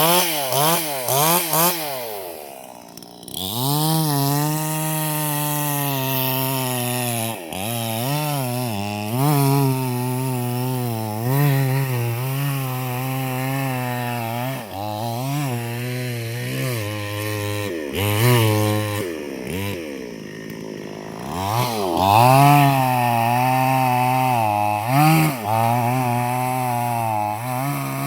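Chainsaw engine running hard as it cuts wood, its pitch repeatedly sagging and rising again as the chain loads and unloads in the cut. Twice, about 3 seconds in and again around 20 seconds in, it drops back briefly before revving up again.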